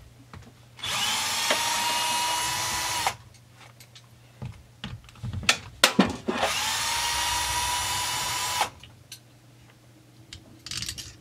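Power drill driver spinning out the Allen bolts that hold a chainsaw carburetor, in two runs of about two seconds each. The motor's whine rises quickly, then holds steady. Light clicks of the bit and metal parts come between the runs.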